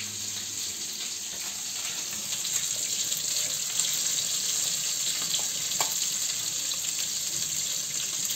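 Meat patties sizzling in a frying pan, a steady high hiss that grows slightly louder, with a few faint clinks of a spoon stirring vermicelli in a steel saucepan.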